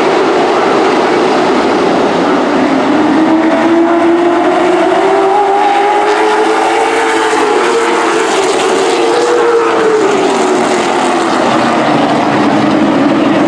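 Racing super trucks running flat out on an oval, their engines loud and continuous. One engine note climbs for a few seconds, then drops again a little past the middle as a truck goes by.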